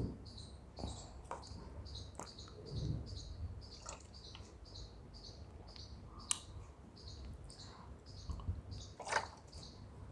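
Cricket chirping steadily in the background, short high chirps about two to three a second, with a few soft clicks and knocks, the loudest about six and nine seconds in.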